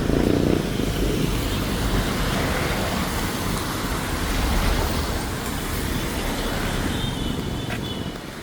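Road traffic passing on a city street: a steady rumble of vehicles and tyre noise.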